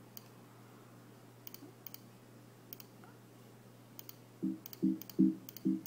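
Computer mouse clicks. Then, from about two-thirds of the way in, a run of short, low-pitched Mac system alert tones about every half second, played as sound effects are tried out.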